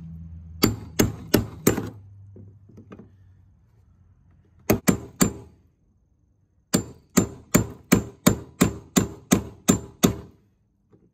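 Hammer striking a chisel against the fuel pump's metal lock ring on the fuel tank, driving the ring around to lock the pump in place. Sharp metallic taps come in runs at about three a second: four, then three, then a longer run of about ten.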